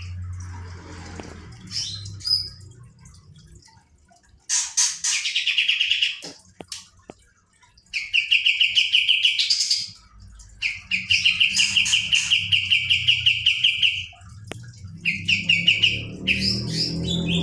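Kapas tembak songbird singing rapid rattling trills of fast-repeated high notes, delivered as several separate bursts of one to three seconds each; the longest comes near the middle.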